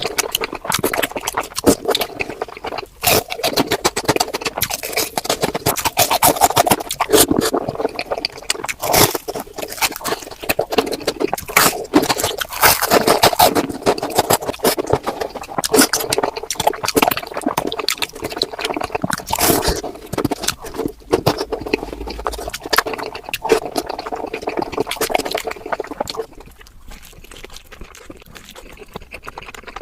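Close-miked eating sounds played at 4× speed: a dense, rapid stream of crunching, chewing and mouth clicks. It turns quieter for the last few seconds.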